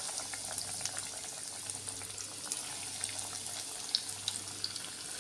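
Breadcrumb-coated corn cutlets deep-frying in hot oil: a steady sizzle with scattered pops and crackles.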